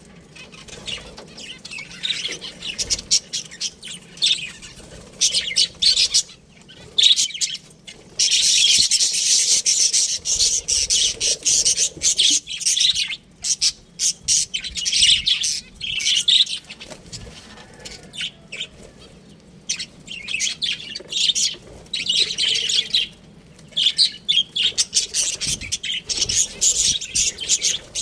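Budgerigars chirping and chattering in rapid runs of high chirps that come in bursts with short pauses between.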